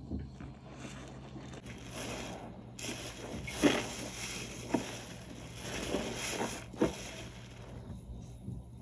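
Thick dish-soap suds being squeezed and worked by hand, a wet crunchy squishing with four sharper squelches in the middle, the first the loudest.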